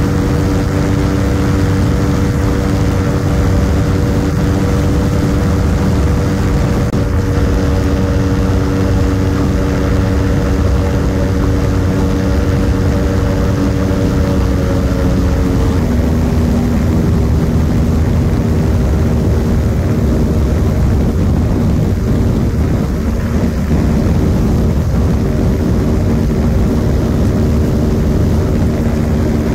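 Ultralight aircraft's engine and propeller running steadily. About halfway through, the engine note drops slightly in pitch and holds there.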